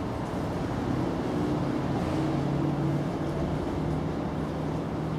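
A low, steady motor hum with a slight drift in pitch, like an engine or machine running.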